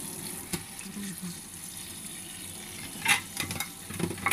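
Kitchen handling sounds over a steady hiss, with a sharp clatter of kitchenware about three seconds in and a few more knocks near the end.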